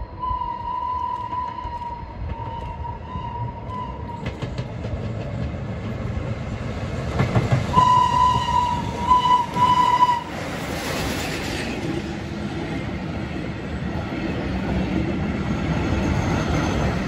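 Steam whistle of an FS Class 640 steam locomotive: one long blast at the start, then three short blasts about eight seconds in as the engine nears. The locomotive then passes with a burst of hiss, and its wooden carriages roll by with a steady rumble and clacking of wheels on rail joints.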